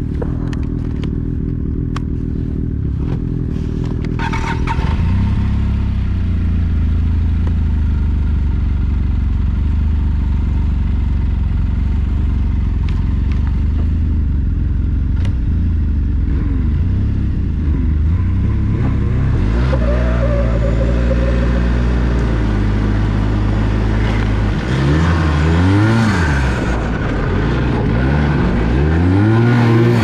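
Snowmobile engine heard from the rider's own sled, running steadily at low speed, then getting louder about five seconds in as the sled pulls off along the trail. In the last ten seconds the engine note rises and falls again and again with the throttle.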